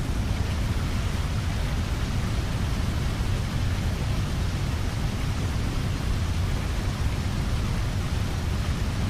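Steady loud rushing noise with a deep rumble underneath and no tone or rhythm in it, cutting off abruptly.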